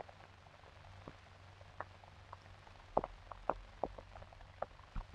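Faint, irregular crackles and pops over a steady low hum: the surface noise of an old film soundtrack.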